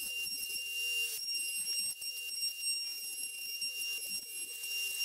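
Palm router with a quarter-inch straight bit running at full speed, a steady high-pitched whine with the hiss of the bit cutting a rabbet along the edge of a plywood panel.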